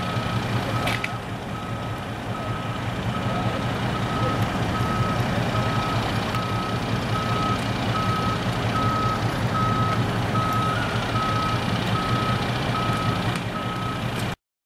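A vehicle back-up alarm beeping steadily about once a second over a fire engine's engine running. The sound cuts off suddenly near the end.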